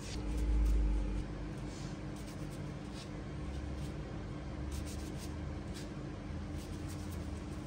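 Soft rustling and light tapping of gloved hands folding and pinching samsa dough around a meat filling, over a steady low hum. A low rumble stands out in the first second.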